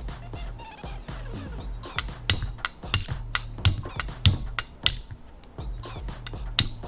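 Hammer tapping a pin punch to drive the extractor pin out of a Tanfoglio pistol slide: a run of sharp taps starting about two seconds in, with one more near the end, over background music.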